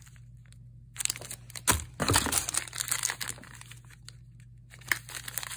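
Plastic snack wrappers crinkling as wrapped packets are handled and rummaged among in a cardboard box. The crinkling is densest from about one to three and a half seconds in, with a couple of sharp knocks.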